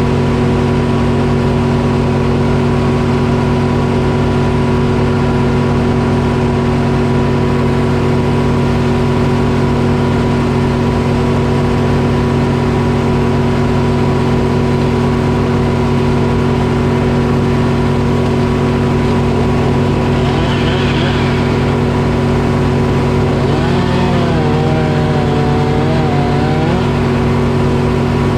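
Detroit Diesel engine running steadily at constant speed, powering a sawmill. A brief wavering whine rises over it about twenty seconds in.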